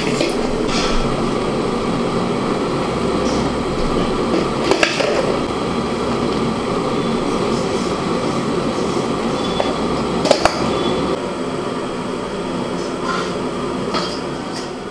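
Steady rumbling of a large pot of water at a hard boil on the stove, with a few sharp metallic clinks as a steel slotted spoon scoops boiled eggs out and knocks against the steel bowl.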